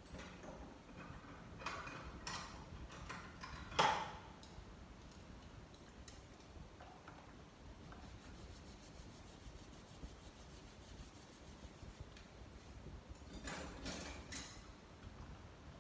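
Faint kitchen handling sounds from a plastic basin and utensils: rubbing and clatter, with one sharp knock about four seconds in. Then light, evenly spaced ticks of chopsticks stirring against the basin, and more rubbing and clatter near the end.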